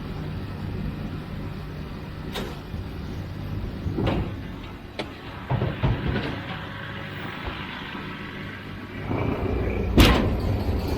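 Farm tractor engine running steadily, with a series of clunks and knocks from the machinery; the loudest bang comes near the end.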